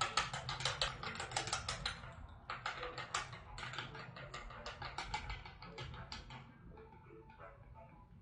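Utensils clicking rapidly against a bowl as pumpkin soup is beaten briskly, about eight to ten clicks a second. There is a short break about two seconds in, and the clicks thin out near the end.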